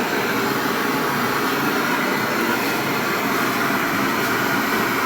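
Steady hissing rush of a brazing torch flame.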